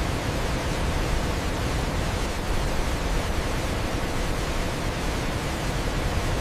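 Waterfall: water falling heavily and steadily, a dense even rush that is strongest at the low end and never changes.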